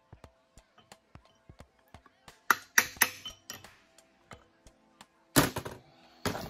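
Hammer tapping a steel drift against the axle bearing housing on a Ford 7.25-inch rear axle: a run of light taps, then several harder metallic strikes about two and a half to three and a half seconds in. A louder clatter of metal follows about five and a half seconds in.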